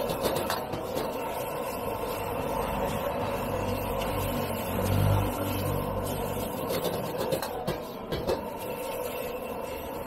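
Noodles and vegetables sizzling in a wok over a gas burner's steady rush, while a metal ladle stirs and scrapes them, with scattered sharp clinks of the ladle against the wok. A low hum swells briefly about halfway through.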